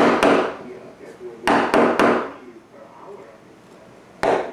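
Wooden carver's mallet striking the handle of a carving tool, driving it into a wooden relief panel: sharp wooden knocks in quick runs of two or three, about a quarter second apart.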